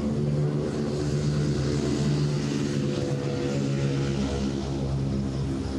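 An engine running steadily nearby, a constant low hum with a pitch that holds nearly level, over general city street noise.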